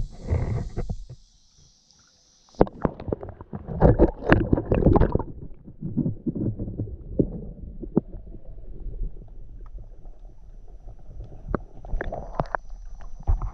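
Muffled sloshing, gurgling and knocking of river water heard with the microphone under the surface, as a hooked channel catfish is handled beside a kayak. It starts suddenly a few seconds in and is loudest soon after, then goes on more softly with a few sharp knocks near the end.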